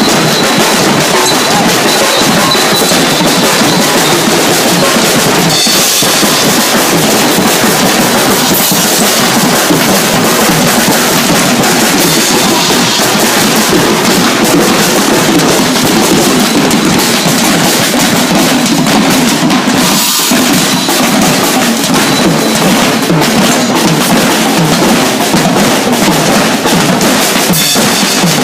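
A percussion group drumming together, batuque-style, in a loud, dense, steady rhythm of many drums.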